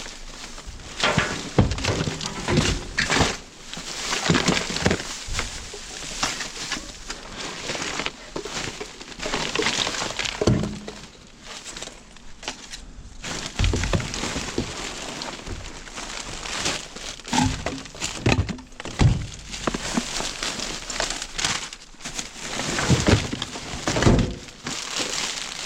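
Hands rummaging through discarded household items: irregular knocks, clatters and thuds of objects being moved, over rustling of plastic and paper.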